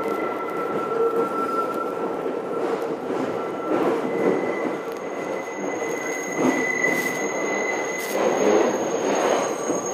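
R62A subway car running with its wheels squealing on a curve: a thin steady squeal over the car's rumble, which jumps to a higher pitch about four seconds in and fades near the end.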